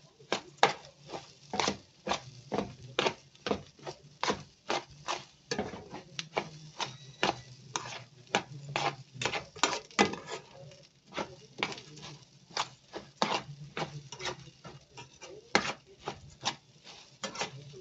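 Metal spoon stirring uncooked rice grains in a metal pot, scraping and knocking against the pot about twice a second.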